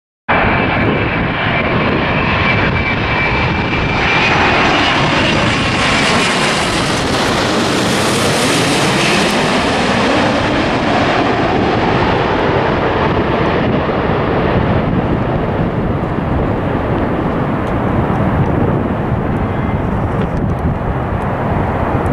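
Jet airliner passing close by, its engine noise swelling to a peak about eight seconds in and then slowly fading, with a thin steady whine from the engines in the first few seconds.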